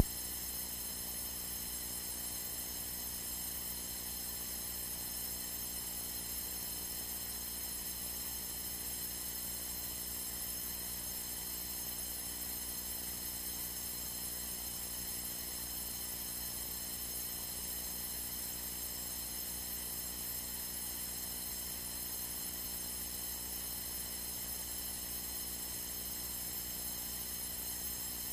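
Steady hum with a faint hiss from a light aircraft's cockpit audio feed between radio calls, unchanging throughout.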